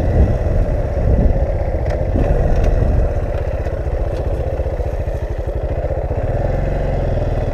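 Motorcycle engine running at low, steady revs, with a few faint clicks.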